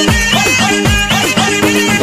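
Nepali lok dohori folk music, an instrumental passage: a drum beat striking about twice a second under a sustained melody line.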